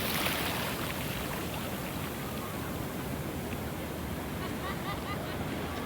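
Ocean surf washing onto a beach: a steady, even rushing noise.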